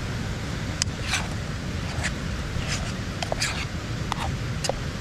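A spoon stirring chili in a camp cooking pot, scraping and clicking against the pot several times, over a steady low rumble.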